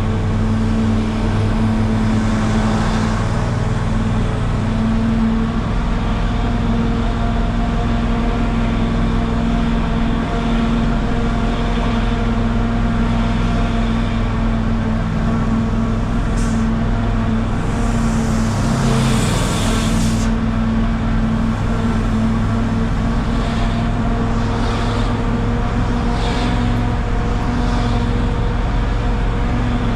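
Engine of a micro (public minibus) running steadily, a constant hum and rumble. About eighteen seconds in, a rushing hiss swells and cuts off suddenly two seconds later.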